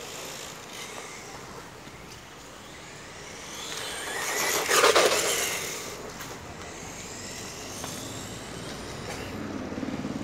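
Radio-controlled Tamiya Frog buggy with a brushless electric motor running on asphalt. Its motor whine and tyre noise swell as it passes close, loudest about five seconds in, then fade.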